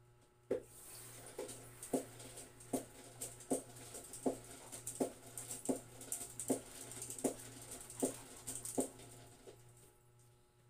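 A dog off-camera giving a steady run of short, pitched calls, about one every three-quarters of a second, which stop near the end.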